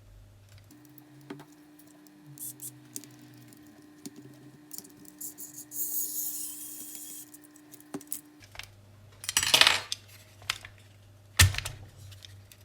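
Small hard clicks and clatter of an Xbox One controller's plastic shell and screws being handled during disassembly, with a louder clatter about nine seconds in and a single sharp knock near the end.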